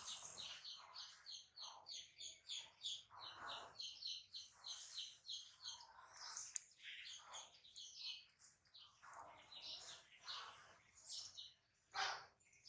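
Faint chirping of small birds: a quick, regular run of short high chirps, about four or five a second, that breaks up into scattered chirps about seven seconds in.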